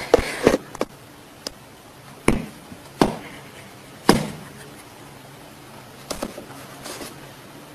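A series of sharp knocks and thumps, a quick cluster at the start and then three single ones about a second apart, each dying away briefly, followed by softer rustling near the end.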